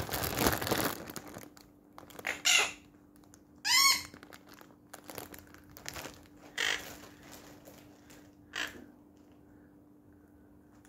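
Plastic zip-lock bag of pellets crinkling at first, then quaker parrots (monk parakeets) giving several short squawks and chirps, one with a quick wavering rise and fall about four seconds in.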